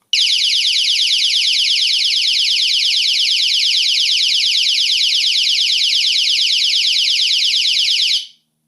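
Siren of a GSM security alarm going off on a test trigger while armed, a loud, high-pitched, rapidly repeating rising warble. It cuts off suddenly about eight seconds in.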